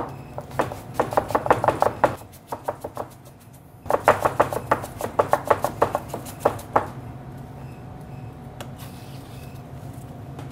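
Chef's knife chopping apple on a cutting board: quick strokes, about five a second, in two runs with a short pause between, the second run stopping about two-thirds of the way through.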